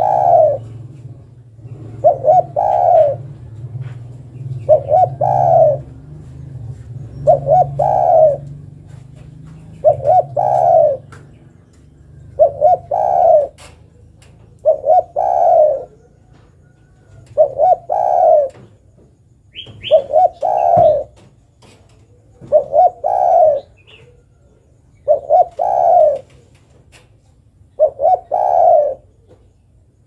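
Spotted dove cooing: a loud phrase of two short notes and a longer one, repeated about every two and a half seconds, roughly a dozen times. The uploader gives it as a female calling to a male.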